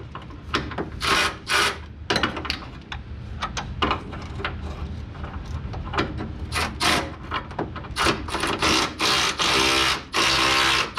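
Ratchet wrench with a motor working bolts under a car, run in many short bursts, then in two longer runs near the end.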